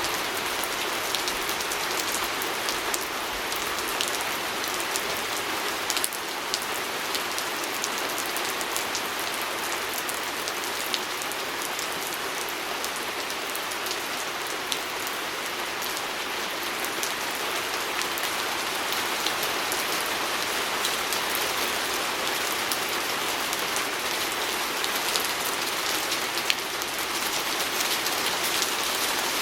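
Steady rain falling on a window, an even hiss dotted with many small sharp drop ticks.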